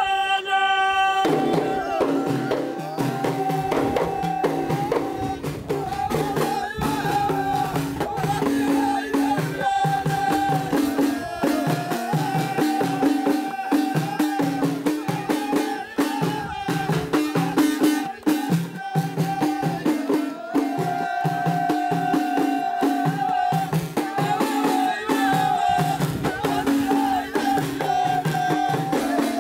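Ahidous: a line of men chanting together while beating bendir frame drums in a dense, steady rhythm. The drums come in about a second in, under held, wavering sung notes.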